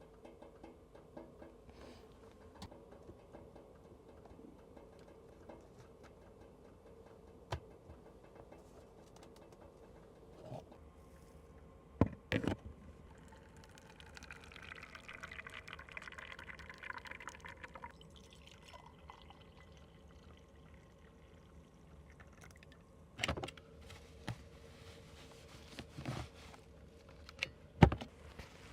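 Liquid being poured for about four seconds near the middle, among a handful of sharp knocks and clinks, the loudest near the end, over a faint steady hum.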